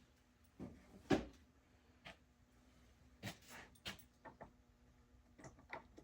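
Scattered knocks and clicks of chainsaws being handled, about a dozen irregular taps, the loudest a single knock about a second in.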